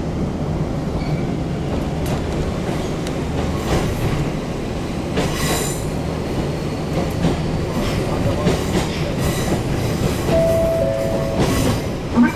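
Toyama Chiho Railway electric train running, heard from inside the carriage: a steady rumble of wheels on the rails, with a few brief high squeals of the wheels.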